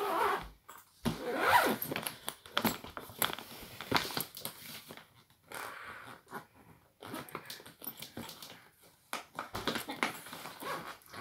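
Zipper being pulled around a hard-shell suitcase, with irregular scrapes and clicks as the plastic shell is handled. A brief vocal sound stands out about a second and a half in.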